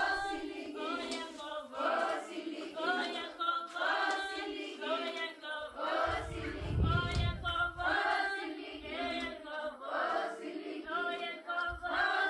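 Background music: a choir of voices singing a phrased melody over a sustained lower part.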